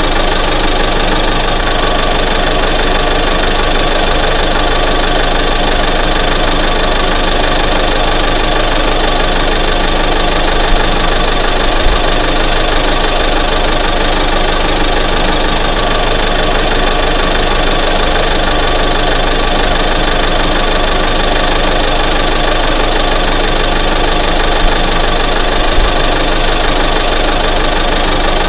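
1988 Ford F-150 pickup's engine running steadily at idle, with no revving. Two pairs of short knocks stand out, about halfway through and again near the end.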